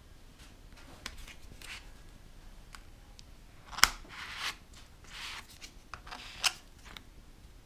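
Plastic scraper card drawn across a metal nail-stamping plate to scrape off excess nail polish. A sharp click about four seconds in is followed by a few short scraping strokes, the last ending in another click.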